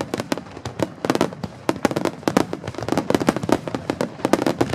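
Fireworks going off: a rapid, irregular string of bangs and crackles, several a second.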